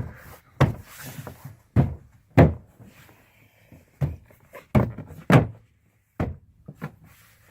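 Interior trim panel of a 1998 Toyota Sienna sliding door being pushed and knocked back into place on the door: a string of sharp, irregularly spaced knocks and thumps, roughly one a second.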